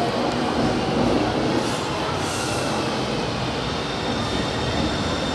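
São Paulo Metro Line 1 trains rolling into the station, a steady rumble of wheels on rail as the stainless-steel cars pass along the platform. About halfway through, a faint high-pitched whine comes in over the rumble.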